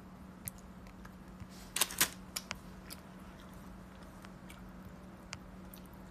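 Someone chewing a cookie close to the microphone: scattered sharp crunches, loudest in a quick cluster about two seconds in, over a steady low hum.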